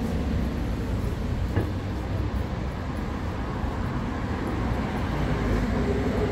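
Steady low rumble of passing vehicles, with a faint knock about a second and a half in.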